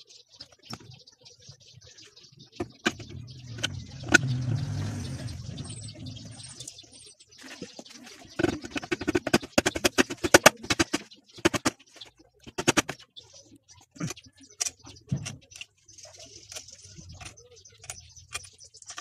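Metal clinks and knocks of a motorcycle engine's aluminium crankcase halves being handled and fitted together, with a quick run of rapid taps about eight seconds in. A low rumble passes around four seconds in.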